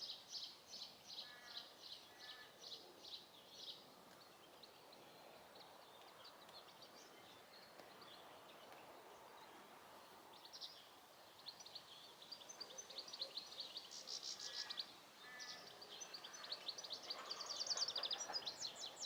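Faint, high-pitched bird chirping: quick repeated peeps several times a second, in two runs with a quieter stretch between them.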